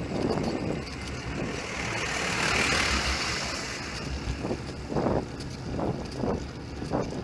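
Wind buffeting a bike-mounted camera's microphone, with a passing car whose tyre hiss swells and fades about two to four seconds in.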